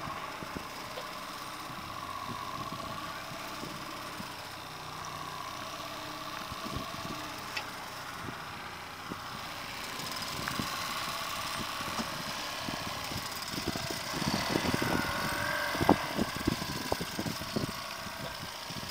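9.9-horsepower outboard kicker motor running steadily at low trolling speed. Louder irregular knocks and rumble come in about fourteen seconds in, with one sharp knock near sixteen seconds.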